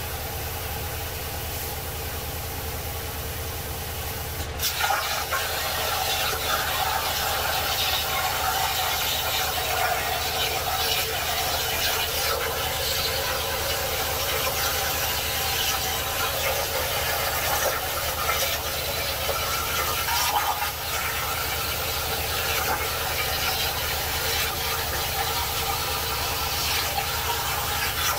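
Jasic Cut 45 air plasma cutter on a CNC table cutting steel plate. For the first few seconds, with the torch idle, only a low hum is heard; about four and a half seconds in the arc fires with a sharp crack, and the cut runs on as a steady hiss and crackle of arc and air, dipping briefly about twenty seconds in.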